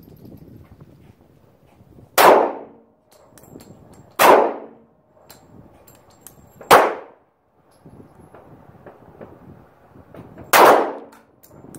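Four single pistol shots from a .45, fired about two seconds apart with a longer pause before the last, each dying away quickly.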